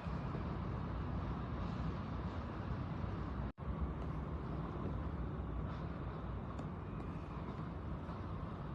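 Steady roar of storm wind, heaviest in the low rumble, with no distinct events; the sound cuts out for an instant about three and a half seconds in.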